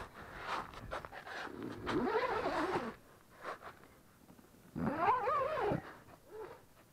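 A pet animal giving two drawn-out calls that rise and fall in pitch, about two and five seconds in, with a short fainter one after. Rustling of clothing comes close by near the start.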